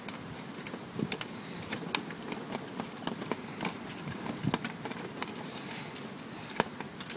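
Gold panning: water swishing in a plastic gold pan as it is swirled, with small stones and grit clicking against the plastic at irregular moments.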